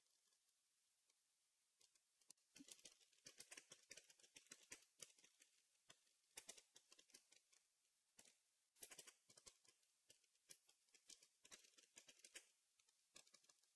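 Faint typing on a Logitech MK295 low-noise keyboard: quick runs of soft key clicks in several bursts with short pauses, starting about two and a half seconds in and stopping near the end.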